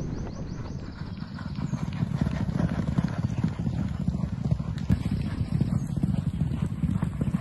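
Thoroughbred racehorses galloping on a sand track: rapid, dull hoofbeats that grow louder about two seconds in.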